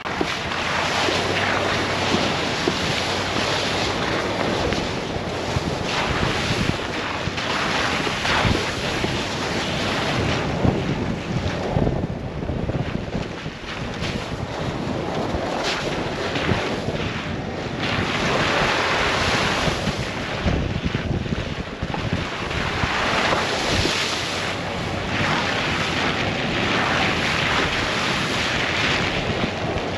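Wind rushing over the microphone of a camera mounted outside a moving Ford Bronco, a dense steady roar with small swells. It is mixed with tyre noise from driving over slush, mud and gravel.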